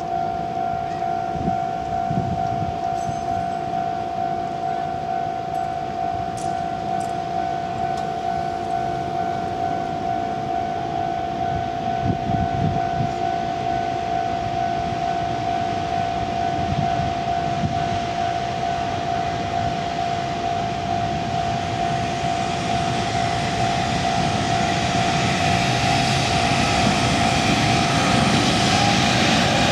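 Japanese level-crossing electronic warning bell ringing steadily in a pair of close tones. Over the last several seconds the noise of an approaching freight train on the Takashima Freight Line builds and grows louder.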